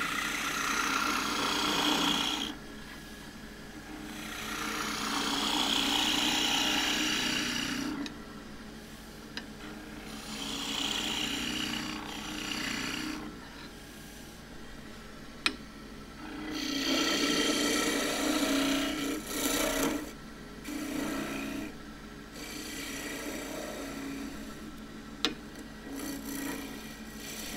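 A 1-inch skew chisel cutting juniper spinning on a wood lathe, in a series of passes a few seconds long, each cut a hiss that swells and fades over the lathe's steady hum. Two sharp clicks, one about halfway through and one near the end.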